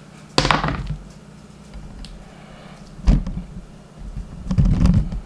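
Knocks and thuds of kitchen things being handled and set down on a table: a sharp knock about half a second in, another about three seconds in, and a quick run of thuds near the end.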